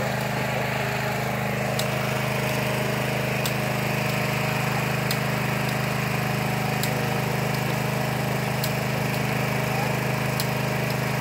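A small engine running steadily at an even speed, a constant low hum. Faint sharp high ticks come about every second and a half to two seconds.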